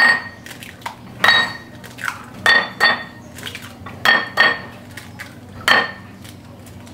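A kitchen bowl is struck sharply about seven times at uneven gaps of roughly a second, and each clink rings briefly. This goes with eggs being prepared for scrambling.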